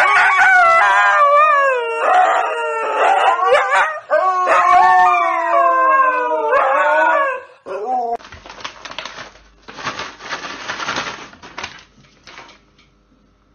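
Dog howling: long, wavering howls that slide up and down in pitch for about seven seconds, with a short break in the middle. Then a stretch of noisy rustling and clatter.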